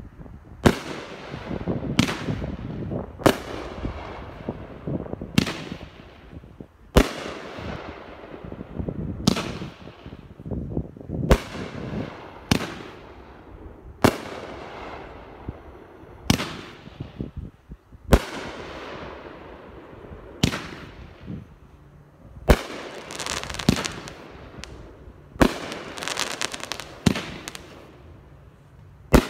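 Multi-shot consumer aerial firework firing a long series of shots, a sharp bang about every second or so, each trailing off as the stars burst and fall. Crackling fills the gaps between the shots near the end.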